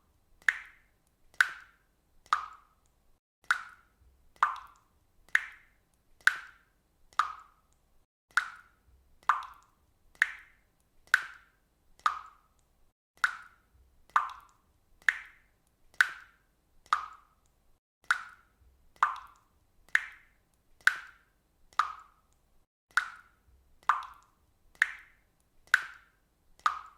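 Water dripping steadily, single drops plopping into water about once a second, each a short plink that varies slightly in pitch from drop to drop.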